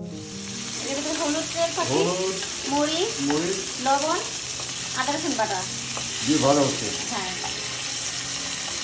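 Pieces of fish frying in oil in a wok, sizzling steadily as a metal spatula turns them, with a few light clicks of the utensil. A person's voice talks in short phrases over the sizzle.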